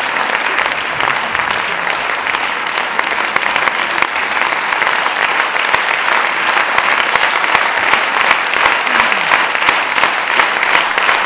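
Theatre audience applauding: dense, steady clapping that grows slightly louder toward the end.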